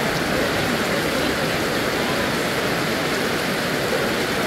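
Heavy rain falling steadily, an even hiss of downpour with no breaks.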